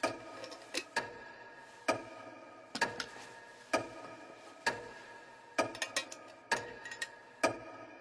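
Clock ticking, a sharp tick a little under once a second, each with a brief ring, and softer clicks between the main ticks.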